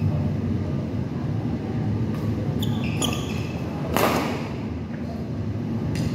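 Badminton play in a large hall over a steady low rumble: a few short, sharp hits about two to three seconds in, then a louder sharp smack about four seconds in that fades quickly.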